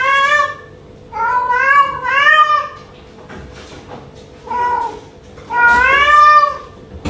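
Domestic cat meowing loudly in a string of drawn-out, wavering calls: two close together about a second in, a short one midway and a long one near the end.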